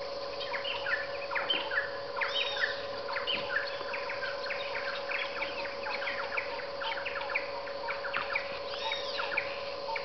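Dawn chorus of many jungle birds chirping and calling at once, in quick overlapping notes, with a couple of louder arching calls. A steady drone sits underneath.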